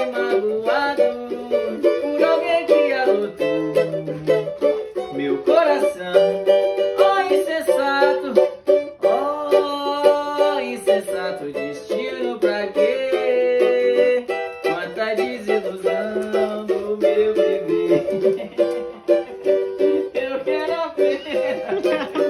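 Cavaquinho being strummed steadily, with a voice singing along in long, gliding notes.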